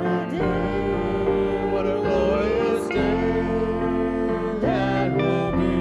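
Live gospel band playing an instrumental break between sung verses: sustained chords over a stepping bass line, with a lead melody that slides between notes.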